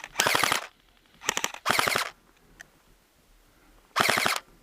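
Airsoft rifles firing short full-auto bursts, each a rapid rattle of evenly spaced shots. There are three bursts in the first two seconds, then a pause, then one more near the end.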